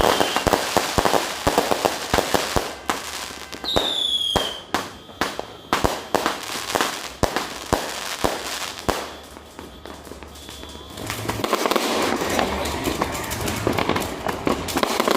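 Fireworks going off: many sharp cracks and bangs in quick succession, with a whistling firework giving one falling whistle about four seconds in.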